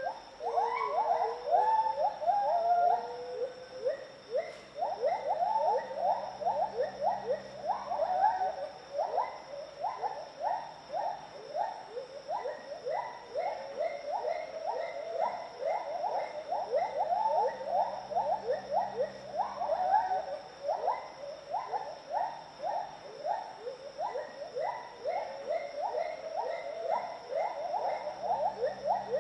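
Gibbons singing: a long, fast run of rising whooping notes, several a second, overlapping between more than one animal, with a steady high insect-like drone beneath.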